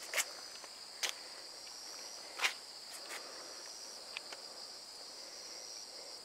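Steady high-pitched chorus of insects trilling without a break, with three short sharp clicks in the first few seconds.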